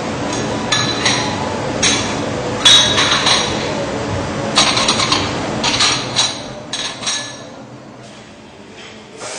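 White porcelain plates clinking against each other, about seven or eight sharp chinks in the first seven seconds as they are lifted from a dish rack and stacked. Under them runs a steady machine noise that fades about seven seconds in.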